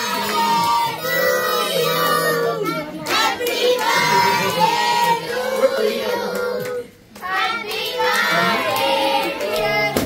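A group of children singing a birthday song together, with hand claps, in phrases broken by short pauses about three and seven seconds in.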